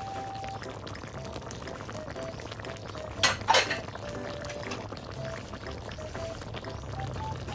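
Chicken curry bubbling steadily in a pot, with two sharp clinks a little over three seconds in.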